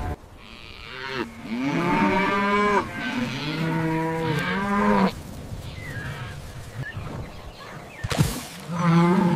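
Cattle mooing: long moos that bend in pitch from about a second in until about five seconds, then another moo starting near the end.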